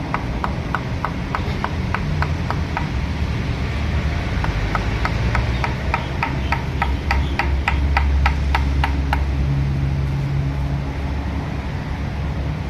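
Rapid, evenly paced tapping, about three to four sharp knocks a second, over a steady low rumble.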